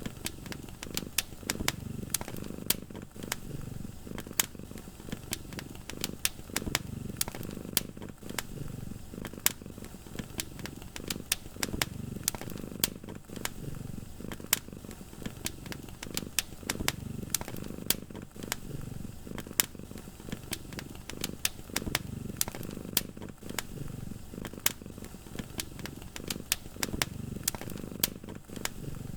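Wood fire crackling with frequent sharp pops, over a cat's low purr that swells and fades about every two seconds.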